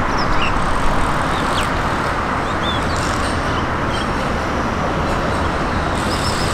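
Z3-class high-floor tram rolling along street-running track, mixed with steady road-traffic noise. A few short high chirps sound over it.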